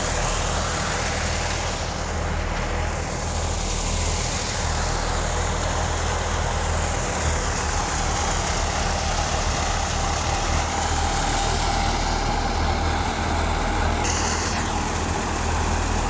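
Tractor-driven wheat thresher running steadily under load, the Fiat 480 tractor's diesel engine humming low beneath the rushing noise of the thresher's drum and blower.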